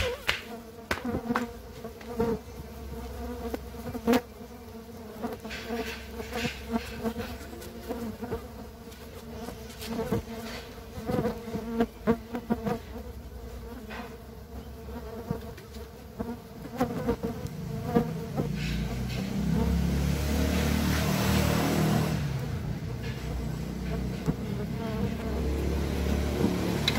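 Stingless bees (Trigona biroi) buzzing steadily around their opened wooden hive box, with scattered clicks and knocks from hands working in the nest. In the last third a louder passing motor vehicle rises over the buzzing.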